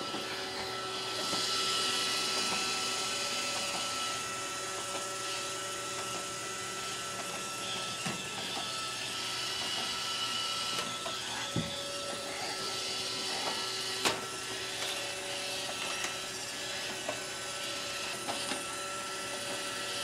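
Roomba robot vacuum running on carpet: a steady motor and brush whir with a thin high whine over it. A few short sharp knocks come through, the loudest about 14 seconds in.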